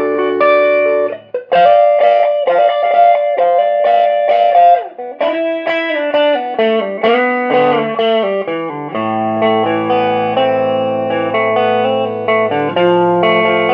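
Electric guitar played through a Sears Silvertone Solid State 100 (model 1464) solid-state amp head: strummed chords and picked single notes. There is a brief break about a second in, and a long ringing chord from about nine seconds in.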